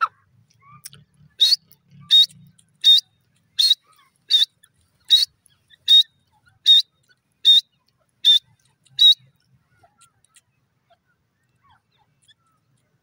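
Grey francolin calling: a series of eleven short, shrill notes, each about three-quarters of a second after the last, stopping about nine seconds in.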